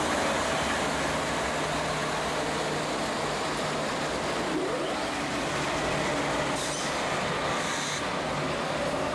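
Freight train passing close by: a GE D9-44CW diesel locomotive's engine goes past, its hum fading about four seconds in, then double-stack container well cars roll by with steady noise of wheels on the rails.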